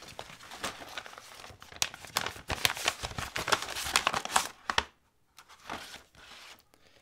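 Brown kraft paper wrapping crumpled and rustled by hand, then a paper mailer handled, in a dense run of crackles that stops about five seconds in, leaving a few faint rustles.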